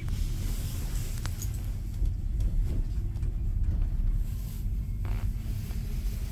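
Steady low rumble of a moving vehicle, with a faint steady hum and a few light clicks.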